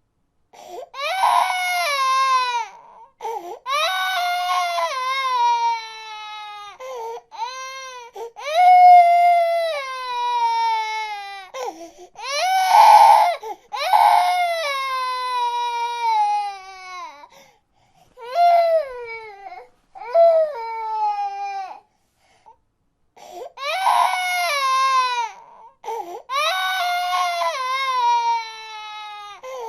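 A baby crying in a run of long wails, each sliding down in pitch at its end, with short breaks for breath between them and a longer pause about three-quarters of the way through.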